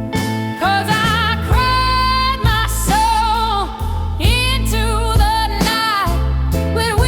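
Slow soul-blues ballad music: a long-held melody line with wide vibrato over a steady bass and a slow beat about once a second.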